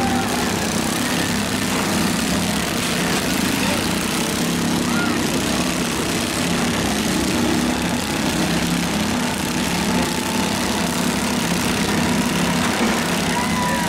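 Several garden tractors' small engines running together in a steady, overlapping drone as the machines maneuver around each other.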